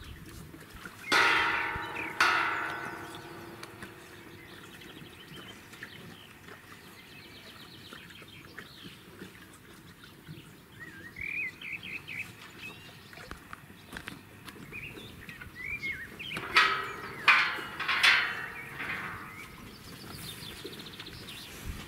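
Galvanised steel farm gate clanging and ringing, two knocks close together about a second in and a quicker run of three or four more near the end. A small bird chirps in between.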